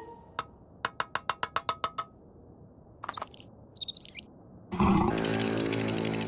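Cartoon sound effects: a click, then a quick run of about ten ticks with a ringing tone about a second in, high gliding chirps around three seconds in, and near the end a loud, steady, deep buzzing growl.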